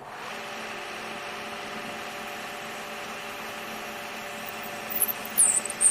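Metal lathe running steadily with a hum of several fixed tones while turning a small handle. Brief high-pitched squeals come from the cut about five seconds in.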